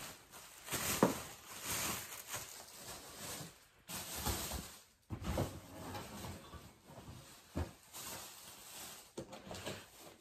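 Plastic shopping bag rustling and crinkling as someone rummages in it and pulls items out, in uneven spells with short pauses.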